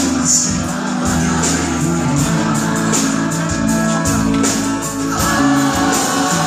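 Live band music: drums, bass and guitar playing a steady beat. A singer comes in about five seconds in with a long held note.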